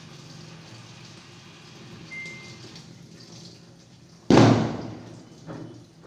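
Samsung top-loading washing machine: a short electronic beep from its control panel about two seconds in, over a low hum, then a sudden loud rushing noise about four seconds in that fades away over about a second.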